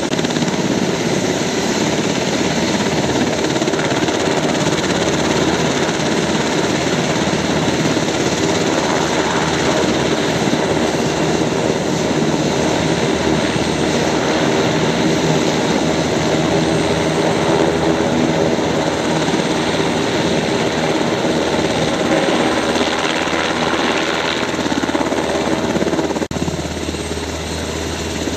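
UH-60M Black Hawk helicopters running: a steady din of turboshaft engine whine and main-rotor noise. About 26 seconds in it changes abruptly to a slightly quieter sound with more low rumble.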